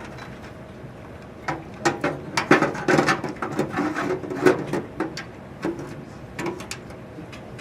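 Irregular clicks, knocks and scraping of a hard drive being pushed and fitted into the metal drive bay of a desktop computer case. The clatter starts about a second and a half in and dies down near the end.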